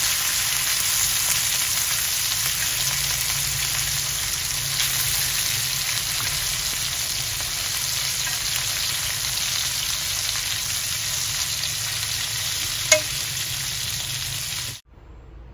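Food sizzling in a hot frying pan, a steady crackling hiss, with one sharp click near the end before the sizzle cuts off abruptly.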